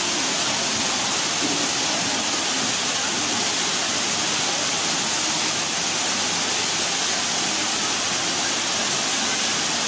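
Steady rushing of a small waterfall pouring into a pool.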